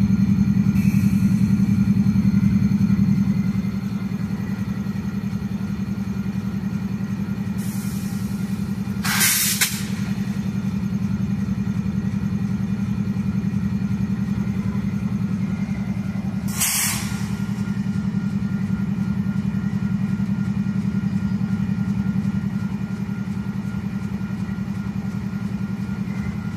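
Diesel-electric freight locomotive idling at a standstill, a steady low hum, dropping slightly in loudness a few seconds in. Two short hisses break in, one about nine seconds in and one about seven seconds later.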